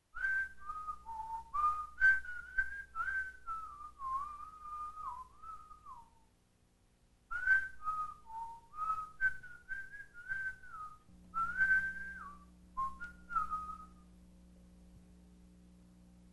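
A person whistling a tune, in two phrases of short stepping notes with a pause of about a second between them. A faint steady hum comes in under the second phrase and continues after the whistling stops.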